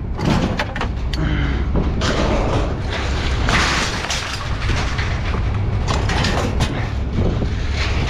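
A vehicle on the move: a steady low rumble with scattered knocks and rattles.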